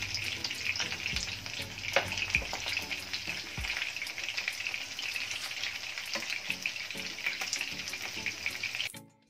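Pomfret pieces shallow-frying in hot oil with curry leaves and green chillies: a steady sizzle with scattered pops and crackles. It cuts off suddenly just before the end.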